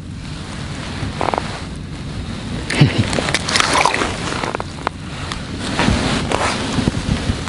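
Wind buffeting the microphone, with handling noise as a bream is unhooked from the jig and let go at the ice hole. The louder noisy surges come about three and six seconds in.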